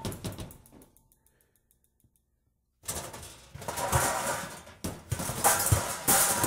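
Electroacoustic music made of clicks and clatter: a quick run of dry clicks fades out, about two seconds of near silence follow, then a dense rattling, clattering texture starts suddenly, with sharp knocks near the end.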